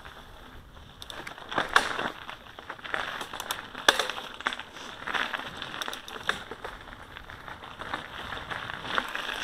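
Mountain bike tyres crunching over a gravel forest track, with irregular clicks and rattles, the loudest about two and four seconds in.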